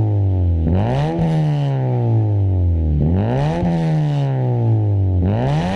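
Honda Civic FD exhaust through an axle-back system with the resonator deleted and an HKS burnt-tip muffler, the engine revved three times. Each rev is a quick rise in pitch that sinks slowly back down.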